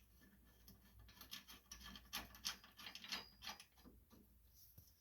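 Faint, irregular small metal clicks and scrapes of nuts being started by hand onto bolts on a riding mower's steering gear assembly.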